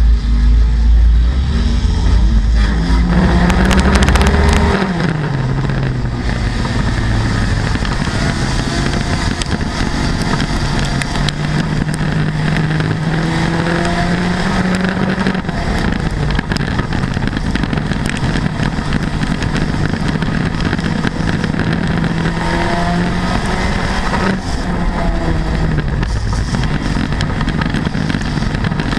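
Front-wheel-drive dirt-track race car's engine heard from inside the cockpit, running at speed with its pitch rising and falling as the driver gets on and off the throttle. A heavy deep rumble fills the first few seconds and stops about four and a half seconds in.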